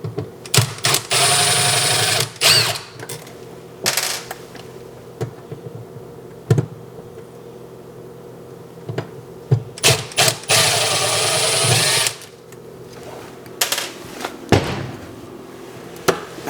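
Cordless screwdriver running in two short bursts, about a second in and again near the middle, backing out the screws of a kitchen wall receptacle, with clicks and knocks of metal parts being handled between.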